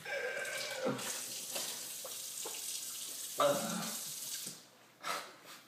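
Kitchen faucet running into the sink, water splashing steadily, then shut off about four and a half seconds in. A man makes a short vocal sound over the running water.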